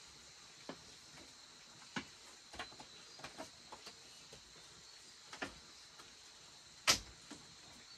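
Steady high-pitched chirring of insects in the background, with scattered light clicks and knocks; the sharpest knock comes near the end.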